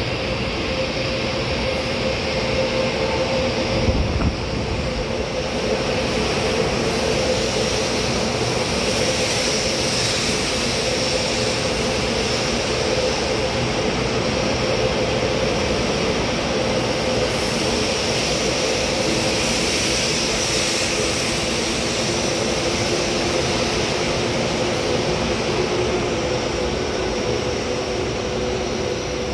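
Taiwan High Speed Rail 700T trainset running through an underground station platform without stopping: a steady rush of wheels and air with a hum, and a low thump about four seconds in.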